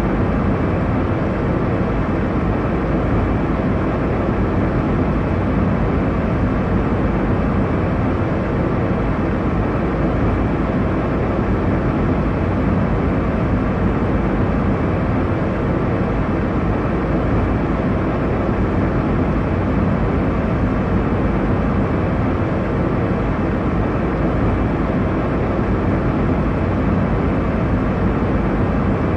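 Airliner cabin noise in cruise: a steady, even low rumble and hiss of engines and airflow, with no events.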